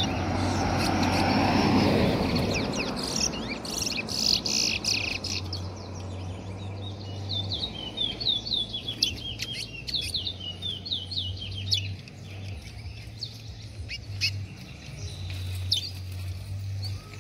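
Caged male chestnut-bellied seed finches (towa-towa) singing in short runs of quick, high chirping notes that start and stop several times. In the first few seconds a rushing noise swells and fades under the song, and a low hum comes and goes.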